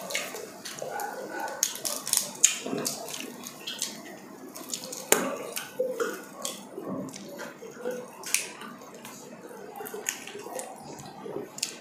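Close-miked eating and drinking sounds: water gulped from a glass, with many sharp wet mouth clicks and smacks from chewing.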